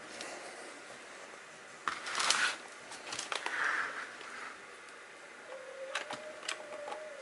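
Light handling noises: scattered small clicks and two short scratchy rustles a few seconds in, with a faint thin held tone near the end.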